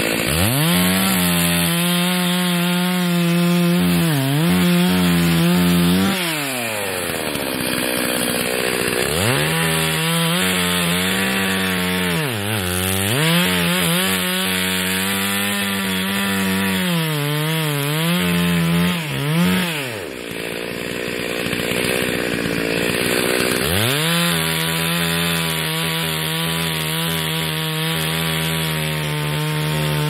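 Two-stroke chainsaw cutting wood. The engine revs to full throttle three times, each for several seconds, its pitch sagging briefly as the chain bites, and drops back to idle in between.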